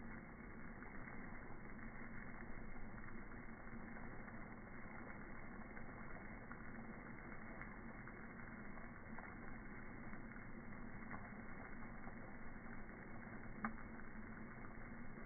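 Steady hiss of a garden sprinkler's water jet spraying, with a low hum beneath it and a couple of faint clicks.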